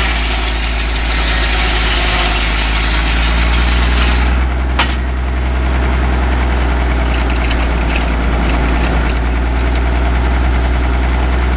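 Large circular sawmill blade cutting through a log for about the first four seconds over the steady running of the tractor engine that drives it. The cutting noise then drops away with one sharp click, leaving the engine and the blade spinning free.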